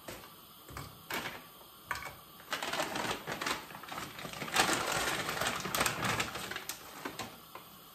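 Kitchen clatter while cooking: a few single clicks, then a dense run of small rapid clicks and rattles from about two and a half seconds in until about seven seconds, dying away near the end.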